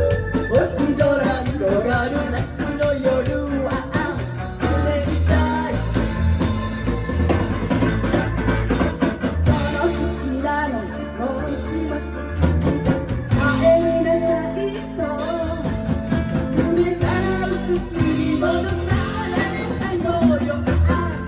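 A band playing a rock song with a singer, drum kit and guitar.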